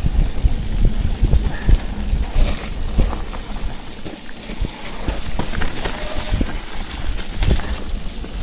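Mountain bike riding down a dirt trail: tyres rolling over rough ground and the bike knocking and rattling over bumps, over a steady low rumble.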